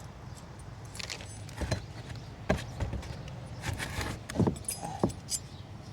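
Small metal parts and tools clinking and clicking now and then as rear brake hardware is handled: caliper-bracket spring clips and pins.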